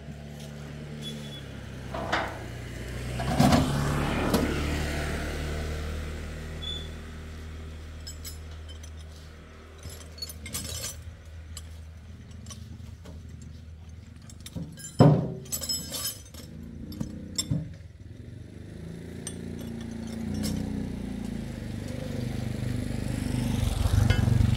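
An engine running steadily, with scattered metal clinks and knocks over it; the loudest knock comes about fifteen seconds in.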